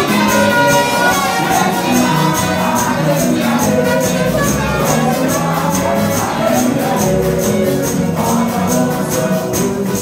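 Live gospel worship music: a man and a woman singing into microphones over a band, with a steady high-pitched percussion beat running through it.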